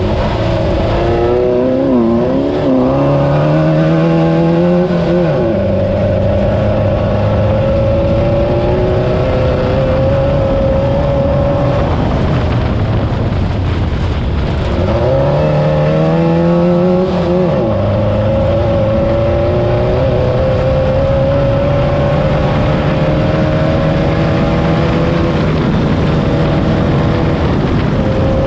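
VW-engined Class 9 off-road race car's engine running hard under load. Its pitch climbs slowly, and twice, about 2 seconds in and again about 15 seconds in, it drops sharply and winds back up as the car lifts off and pulls again.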